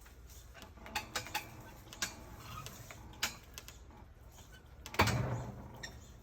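Scattered metallic clicks and knocks from the lifting rigging and the heavy metal sculpture as it shifts under the hoist. The loudest is a single clank about five seconds in, which rings on for about a second.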